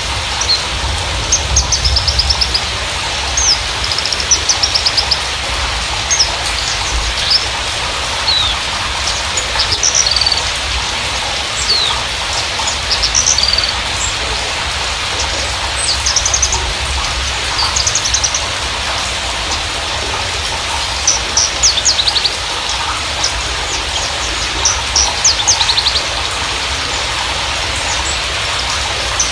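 Javan bushlark (Mirafra javanica parva) singing: a busy run of short, high-pitched chirps, quick trills and down-slurred notes in bursts, over a steady hiss and a low rumble.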